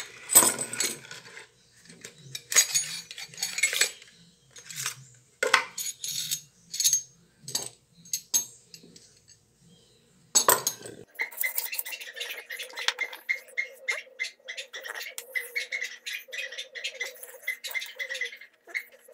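Steel mortise chisel bits and other metal parts clinking and clattering as they are handled and set down on a workbench, in separate sharp clinks. From about eleven seconds in, a steady rapid ticking with a held pitch takes over.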